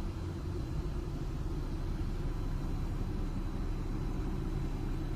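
Steady low rumble of a car running, engine and road noise with no sudden sounds.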